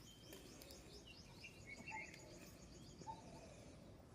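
Near silence with a few faint, short squeaks from a young puppy crying softly, over a faint rapid high chirping.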